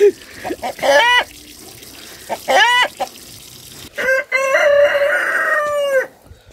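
Rooster calling: two short rising-and-falling calls, then one long crow lasting about two seconds.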